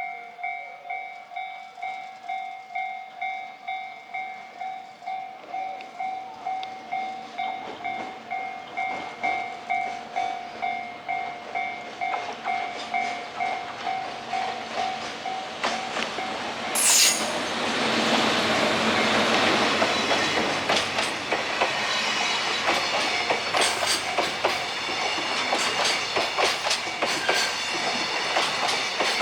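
A pulsing electronic warning tone, about two beeps a second, fades out about 16 seconds in. Then the DD200 diesel-electric locomotive arrives with a short loud horn blast and rumbles past. Its empty container flatcars follow, clattering over the rail joints.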